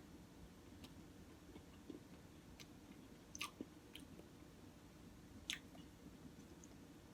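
Faint close-up chewing with a few sharp, wet mouth clicks, the loudest about five and a half seconds in.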